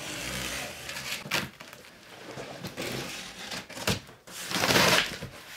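Large cardboard box being opened by hand: the cardboard scraping and rustling, with a few sharp knocks and clicks, and the loudest rustle about four and a half seconds in as a flap is pulled open.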